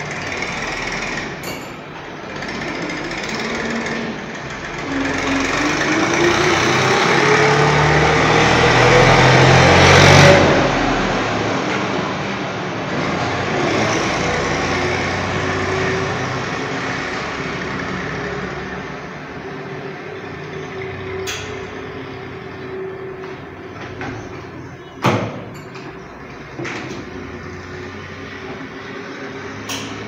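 A motor whine rising steadily in pitch under a loud rushing noise for several seconds, cutting off sharply about ten seconds in. Then a fainter steady hum with a few sharp clicks.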